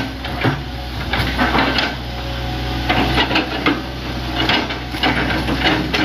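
Hitachi Zaxis 100 excavator running steadily, with a string of sharp knocks and scraping clatter over it.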